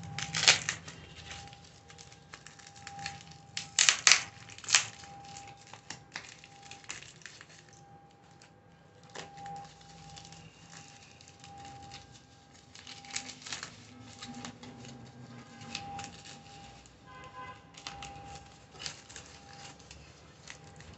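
Foam packing sheet and clear plastic tape crinkling and ripping as they are pulled away by hand, with scissors snipping through the tape. The loudest sharp rips come about half a second in and again about four seconds in.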